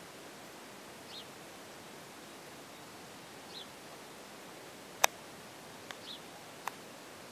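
Quiet outdoor farmyard ambience: a steady hiss with a short, high bird chirp about every two and a half seconds. About five seconds in come three sharp clicks within two seconds, the first much the loudest.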